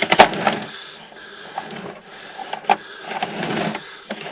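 Sewer inspection camera's push cable being fed through a cleanout, rattling and clattering with a few sharp knocks, the loudest right at the start and another about two and a half seconds in.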